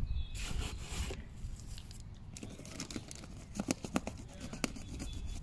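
Bag of mulch being torn open and handled: a rip and rustle, then a run of short crackles as the bag crinkles.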